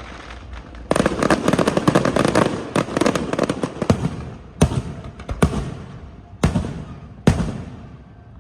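Fireworks going off: a dense, rapid crackle of many sharp bangs starting about a second in and lasting about three seconds, then four separate bangs, each followed by an echoing tail.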